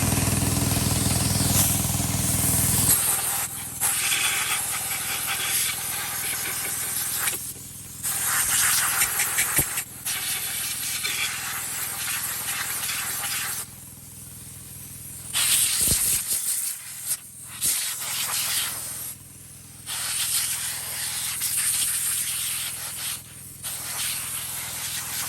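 Loud hissing that comes in long stretches broken by short pauses, over a steady low hum.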